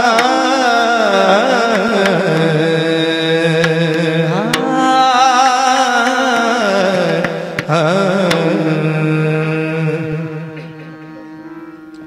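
A man singing a long, wavering melismatic phrase without clear words in Varkari kirtan devotional style, over a steady drone, with a few sharp clicks. The voice fades out near the end and the drone carries on.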